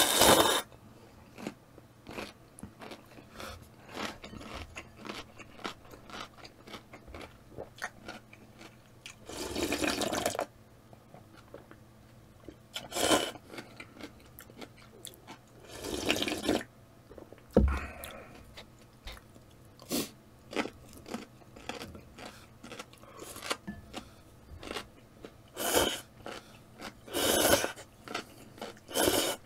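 Close-up eating of instant ramen: several loud slurps of noodles and broth, the longest about a second, with quiet chewing and small chopstick-on-bowl clicks between them.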